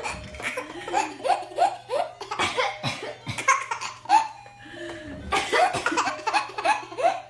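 An 8-month-old baby girl laughing hysterically in quick repeated bursts, pausing briefly about four seconds in before laughing again. Short coughs from her mother fall between the laughs.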